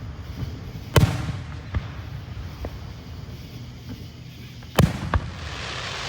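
Fireworks going off: two loud bangs, about a second in and near five seconds, with a few smaller pops between them, then a hissing crackle near the end.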